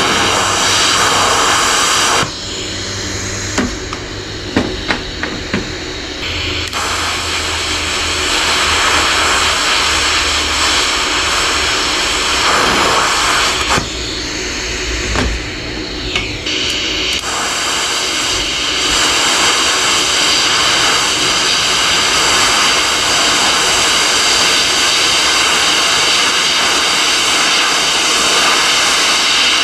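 Lift-TIG welding arc from a YesWelder Flux 135 Pro, a loud steady hiss-buzz. It cuts out after about two seconds, with a few clicks during the pause, strikes again about seven seconds in, drops out briefly near the middle, then runs steadily to the end.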